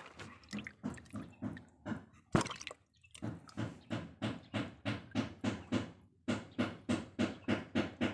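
Water splashing in a quick, regular rhythm of about three splashes a second, with one louder splash a little over two seconds in.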